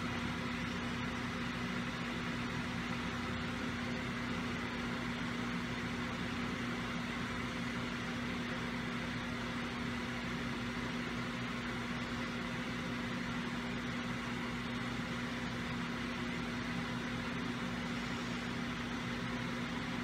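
Steady background hum over a constant hiss, unchanging throughout: room noise with no distinct event.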